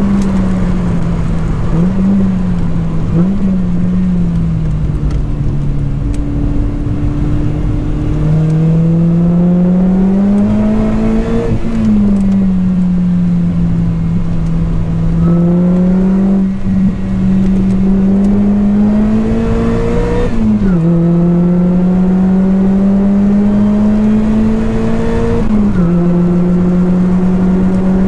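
Lotus Elise 220 Sport's supercharged 1.8-litre four-cylinder engine, breathing through a 2bular H1 silencer with add-on, being driven hard on track. The engine note climbs steadily in each gear and drops sharply at upshifts, about 11, 21 and 25 seconds in, with quick throttle blips for downshifts early on.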